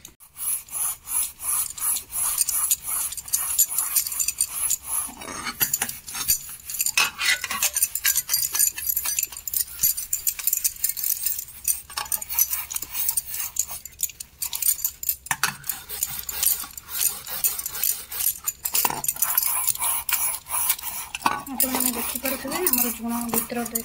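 Scouring pad scrubbing the inside of a brass dhuna stand's bowl with dishwashing liquid. The pad rasps against the metal in fast back-and-forth strokes, with a few short pauses, working off the blackened tarnish.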